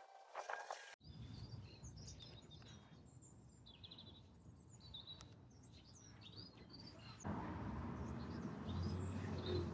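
Small songbirds chirping and twittering, with short rapid trills, over a low background rumble that gets louder about seven seconds in.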